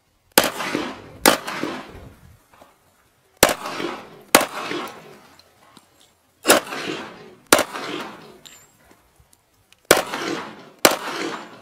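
Handgun shots, eight in four pairs: two quick shots about a second apart, then a pause of about two seconds before the next pair. Each shot is sharp and leaves a short echo.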